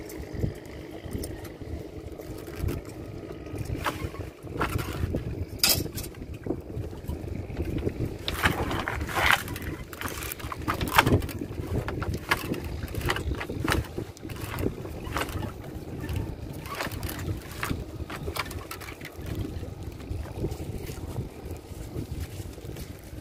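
Small fishing boat on the water: a steady low hum runs throughout, with irregular knocks and clatter over it.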